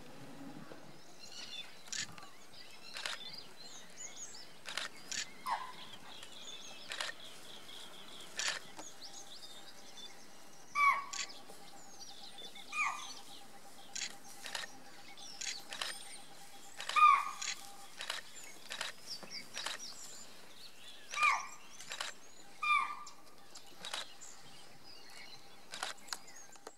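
Wild birds chirping and calling, with a loud, short, falling call repeated several times at irregular gaps from about ten seconds in, over a thin steady whine.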